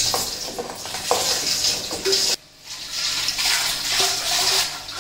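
Water running and sloshing as a stainless steel corny keg is rinsed out at a sink, with a brief break about halfway through.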